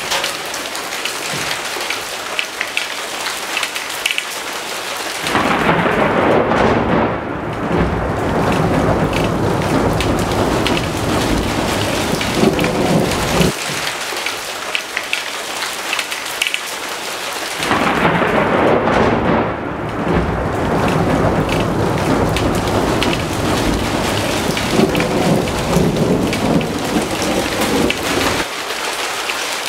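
Thunderstorm: steady rain hissing throughout, with two long rolls of thunder. The first rumbles in about five seconds in and lasts around eight seconds. The second starts near the middle and rolls on for about ten seconds.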